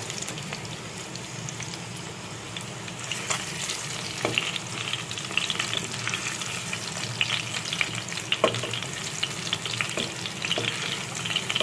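Whole potatoes frying in hot mustard oil in a kadai: a steady sizzle full of small pops. A wooden spatula turns them, with a few sharper knocks against the pan about four, eight and ten seconds in.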